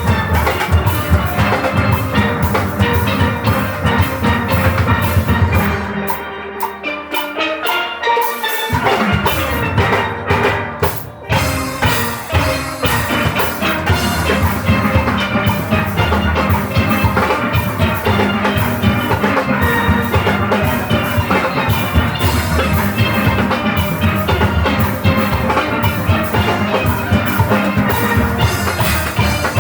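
Steel orchestra playing: massed steelpans over drum kit and percussion. About six seconds in the bass and drums drop out briefly, leaving the pans, and the full band comes back in a few seconds later.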